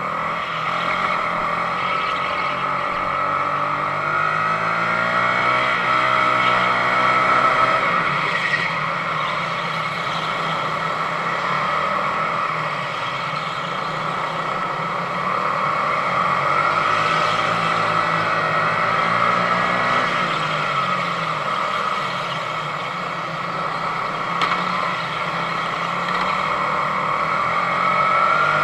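Sodi RX250 rental go-kart's 22 hp engine heard onboard at race pace, its pitch rising as it accelerates and falling off into corners, over and over, with steady rushing noise underneath.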